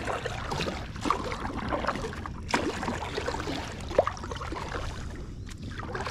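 Water splashing and sloshing around an inflatable packraft, in irregular strokes with a few sharper knocks, over a steady low rumble.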